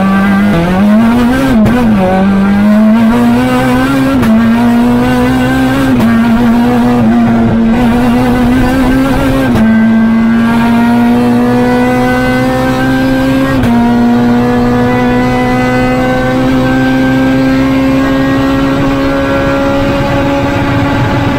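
Renault Clio R3 Max rally car's 2.0-litre four-cylinder engine, heard from inside the cabin, pulling under load. Its note breaks briefly at gear changes about every two to four seconds, then climbs slowly and steadily in pitch through the last several seconds.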